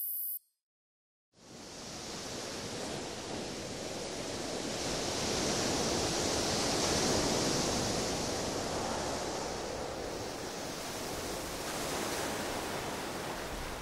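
Ocean surf sound effect: a rushing wash of noise that comes in about a second after silence, swells to its loudest around the middle and eases off again.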